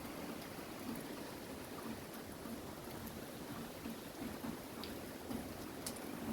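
Steady hiss of rain and rising wind of an approaching hurricane, with a few faint ticks of drops.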